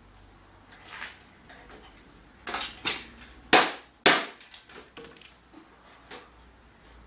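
Knocks and clatter of a steel computer case being pulled at by hand on a concrete floor, with two loud sharp metallic bangs about half a second apart midway, then a few lighter clicks.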